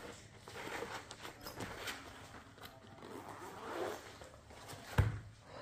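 Zipper of a soft marker carrying case being pulled open in several scraping pulls, with a single thump near the end.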